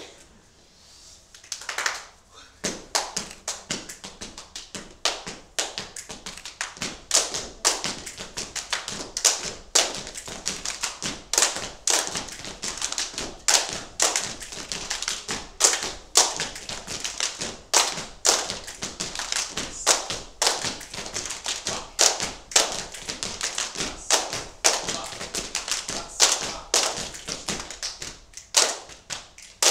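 Group body percussion in unison: hand claps and slaps on the body with some thumps, in a steady quick rhythm with louder accents about every two seconds. It starts about two seconds in.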